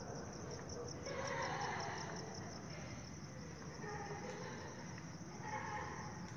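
Crickets chirping faintly in a fast, even pulse, over low background noise. Faint indistinct sounds swell about a second in and again near the end.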